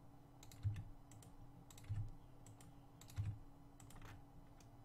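Computer keyboard keys and mouse buttons clicking irregularly, about a dozen sharp clicks, with three dull low thumps roughly a second apart that are the loudest sounds. A faint steady hum runs underneath.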